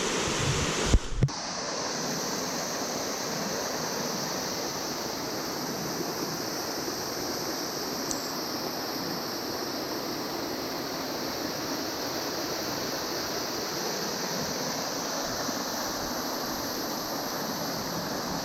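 A waterfall's steady rushing, falling water plunging into a pool. A couple of brief knocks about a second in.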